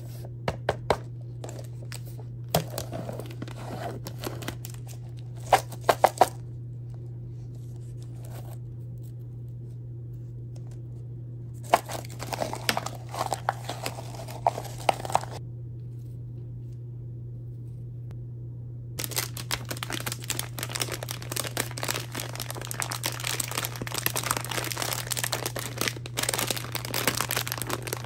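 Handling snack packaging: the foil lid of a Mini Chips Ahoy cup gives a few sharp crackles, then mini cookies rattle out of the plastic cup into a hand around the middle. Over the last third a plastic candy bag crinkles steadily as it is handled. A steady low hum runs underneath.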